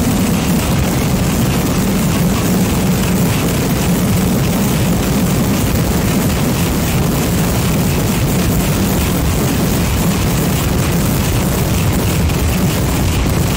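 Vedikettu fireworks barrage fired from the ground: firecrackers going off so fast that they merge into one continuous loud roar with a deep rumble underneath.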